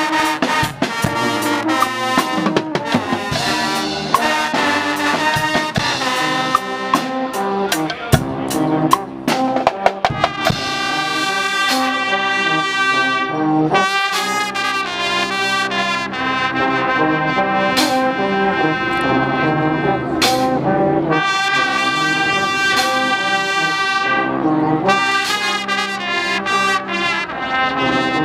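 Guggenmusik brass band playing: trumpets, trombones and sousaphones with a drum kit and cymbals. Drums hit often for the first ten seconds or so; after that the brass mostly holds long, loud chords with only occasional drum strikes.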